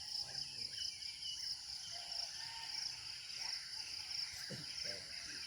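Steady chorus of insects in rural fields, a high pulsing trill that never stops, with a few faint short chirps over it.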